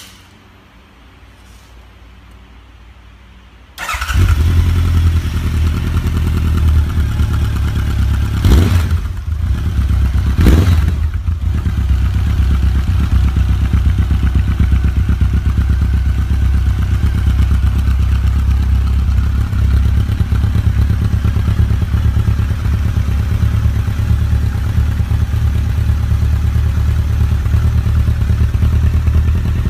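Honda CB1100RS air-cooled inline-four engine breathing through a solid titanium slip-on silencer: it starts about four seconds in, is blipped twice, then settles to a steady idle.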